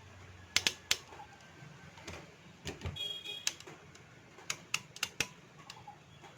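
Godrej manual typewriter's mechanism worked by hand, giving scattered sharp metallic clicks and clacks of keys and levers, with a short metallic ring about three seconds in.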